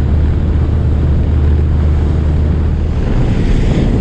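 Boat engine running under way, a steady low drone mixed with wind on the microphone and rushing water. About three seconds in, the drone drops away and rougher wind and water noise takes over.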